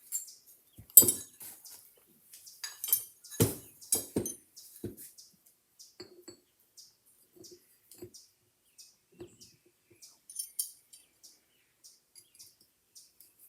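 Scattered clinks and clicks of small metal tools and a screw being handled against a metal motor part, with a few sharper knocks about one, three and a half and four seconds in.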